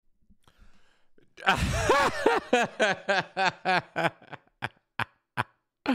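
A man laughing into a close microphone: a long run of quick "ha" pulses that starts about a second and a half in and grows shorter and softer until it trails off about five seconds in.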